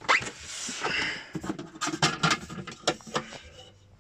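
Handling noise from the espresso machine and its parts being moved and shown: rubbing in the first second, then a run of light clicks and knocks that die away near the end.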